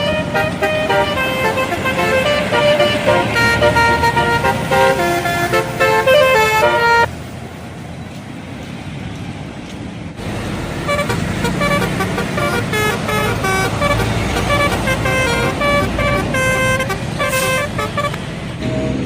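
Bus telolet horns playing quick melodic runs of stepping horn notes. They stop about seven seconds in for a quieter stretch of bus engine and street noise. About three seconds later a second telolet tune starts and runs on.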